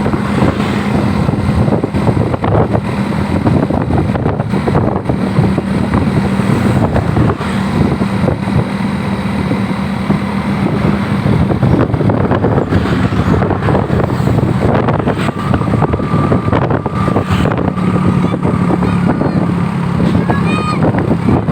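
Loud bus engine and traffic noise with a steady low hum. In the second half a held horn tone sounds, and near the end a telolet-style multi-tone bus horn starts a melody of notes that glide up and down.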